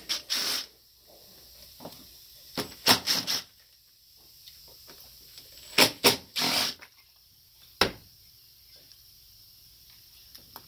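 Cordless drill-driver run in short trigger bursts, three clusters about three seconds apart, backing screws out of a carburetor's fuel assist pump. A single sharp click comes near the end.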